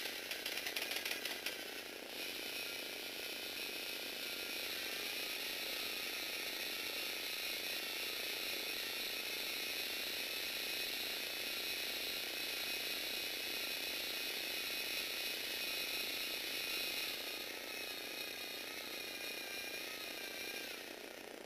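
Electric motors driving the plastic gear trains of a Lego Technic crane boom as it moves: rapid clicking for the first two seconds, then a steady whirring whine whose pitch wavers under load, easing slightly near the end.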